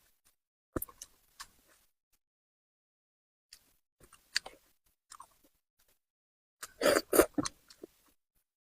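Close-miked mouth sounds of eating spicy braised fish: short bursts of wet chewing and smacking separated by silent gaps, the loudest cluster about seven seconds in.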